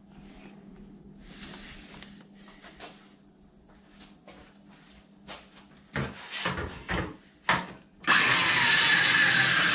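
Handheld circular saw starting up about eight seconds in and cutting through an old wooden cabinet door, a loud steady whine after a few seconds of quiet handling knocks.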